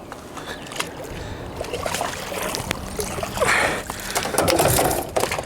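Water splashing and sloshing around a bowfishing boat, with several knocks and clatters on the boat and a louder surge of splashing in the second half, over a faint steady hum.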